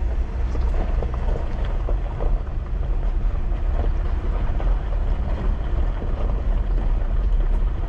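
A Jeep driving along a dirt forest road, with a steady low rumble of engine and tyres and scattered small knocks and rattles.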